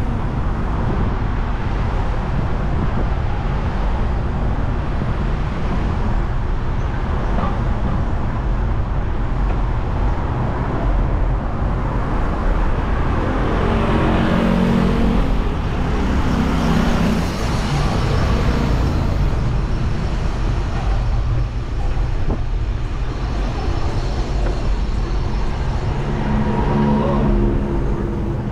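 City road traffic heard from a bicycle: a steady low rumble, with the engine of a passing vehicle rising in the middle and another near the end.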